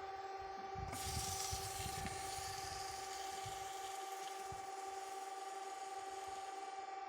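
Welding: a steady electrical whine from the welding machine, with a hiss that starts about a second in and slowly dies away.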